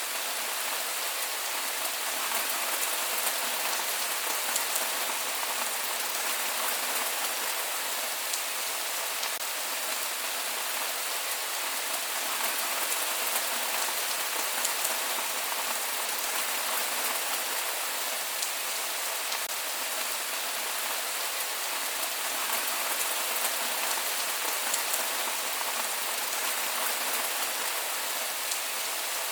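Steady rain falling on a surface, an even hiss with scattered drop ticks and no thunder.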